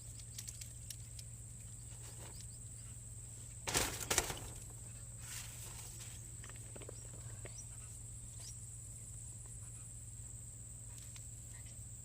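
Steady high-pitched insect chirring with a low steady hum beneath it, scattered small clicks, and a brief louder rustle about four seconds in.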